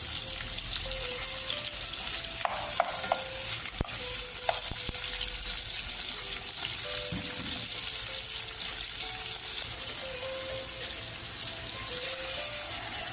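Sliced onions and tomatoes sizzling in a hot metal pot with a steady hiss. A few light knocks come about three to five seconds in as more tomato wedges go in.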